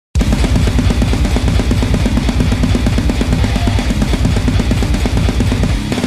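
Heavy metal music kicking in abruptly: a full drum kit with a rapid kick drum, snare and cymbals.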